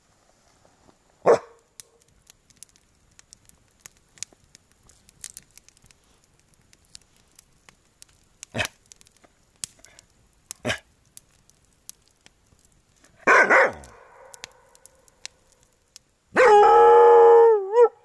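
A dog vocalising: a short bark about a second in, another bark around the middle, and a drawn-out wavering howl near the end. A campfire crackles and pops in between.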